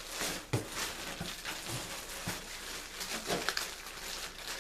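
Irregular rustling and crinkling of packaging as a hat is handled and unwrapped, with scattered small clicks.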